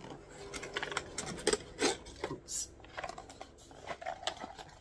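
Hands handling cardboard and card: a card sheet rubbing and scraping against the sides of a cardboard box as it is worked loose and lifted out, with several short scrapes and taps.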